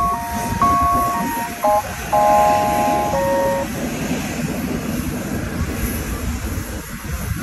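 A melody of held electronic notes breaks off about three and a half seconds in. What remains is a steady rumbling hiss of vehicles and jet aircraft engines running on an airport apron.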